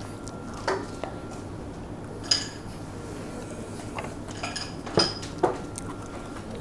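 Metal cutlery clinking and scraping against dishes while eating: scattered sharp clinks, the loudest about two and five seconds in, some with a brief high ring.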